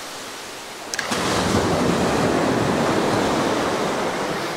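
Small surf breaking and washing up the sand at the water's edge, the wash swelling louder about a second in.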